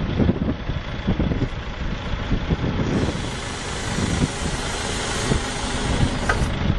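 Rough-terrain forklift's engine running as the machine rolls across gravel, a steady rumble with uneven low thumps. A hiss joins about three seconds in.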